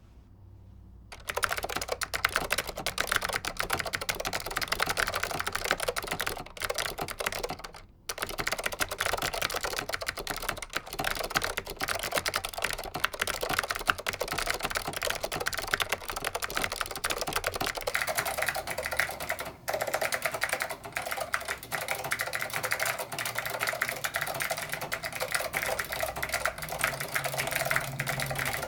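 Fast continuous typing on a vintage Leading Edge DC 2014 keyboard with clicky SKCM Blue Alps switches, a dense stream of sharp key clicks with a brief pause near the middle. About two-thirds of the way through, the sound takes on a different colour as the recording switches from the studio microphone to the camera's built-in microphone.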